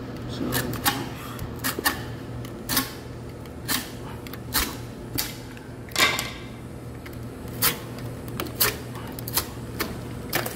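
Wooden door shims being cut off with a utility knife: a series of sharp, irregularly spaced clicks and cracks, roughly one every half second to second.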